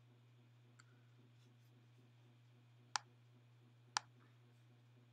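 Faint clicks of a computer's pointing device as a file is dragged into an editing timeline: a soft click under a second in, then two sharp clicks about a second apart near three and four seconds, over a faint steady low hum.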